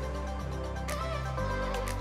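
Background music: sustained bass notes that change about once a second under held tones, with a few light percussive hits.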